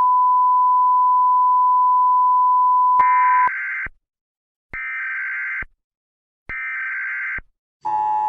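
Emergency alert broadcast tones: a steady high beep held for about three and a half seconds, then three short, raspy data bursts with pauses between them, the header of an emergency alert. Near the end the steady two-tone alert signal begins.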